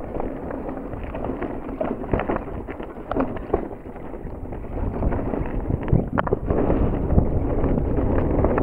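Mountain bike riding down a dirt singletrack: tyres crunching over the ground and the bike rattling and knocking over bumps, with wind buffeting the microphone. It gets louder from about halfway through.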